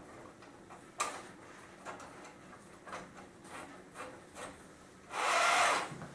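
Wooden chair backrest parts handled while a cable is threaded through their holes: a sharp click about a second in and a few light knocks, then a louder scraping rub of wood near the end.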